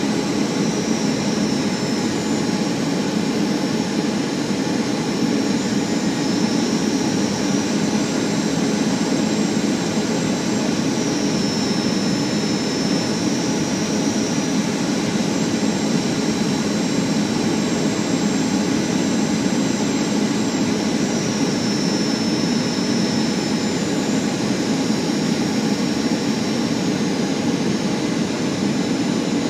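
Steady cabin noise of a Boeing 737 on approach: the jet engines' drone and rushing air heard from inside the cabin, with a faint high whine that wavers slightly in pitch.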